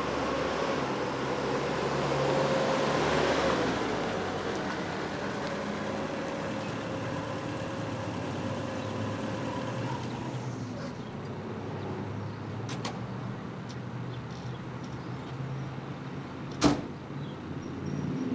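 Steady low vehicle hum, with a single sharp knock near the end.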